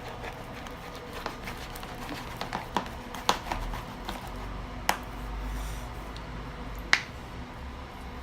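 A sticky, half-activated slime mixture being stirred in its container, giving irregular sharp clicks and small pops, about six over several seconds.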